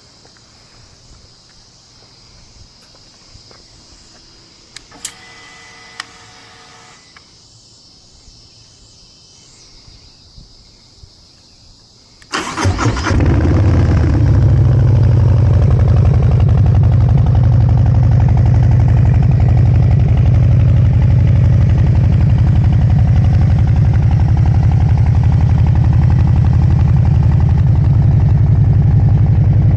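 Harley-Davidson Low Rider ST's Milwaukee-Eight 117 V-twin with a Stage 1 tune (remap, aftermarket exhaust and air filter) starting about twelve seconds in: a short crank, it catches at once and settles into a loud, steady idle. Before that, faint insect chirping, a couple of clicks and a brief whine.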